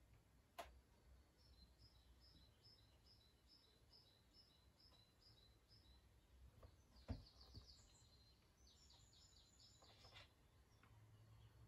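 Faint birdsong from a television nature film: a short high chirp repeated about three times a second, then quick trills. There is a sharp click near the start and a soft thump about seven seconds in.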